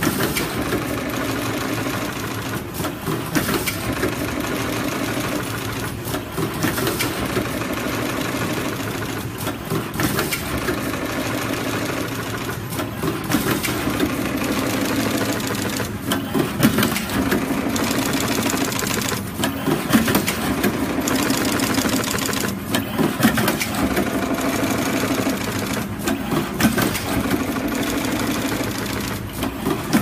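Automatic flat-cable cut, strip and crimp machine running: a steady mechanical clatter, with a louder stroke about every three seconds.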